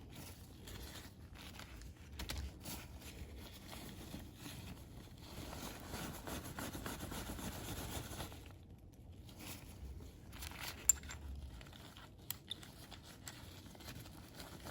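Hands working on filter parts: irregular scraping, rustling and light clicks, busiest in the middle, with one sharp click about eleven seconds in.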